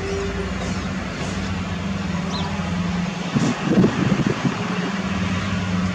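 Steady low engine-like hum over background noise, with a short, louder, uneven sound a little past halfway.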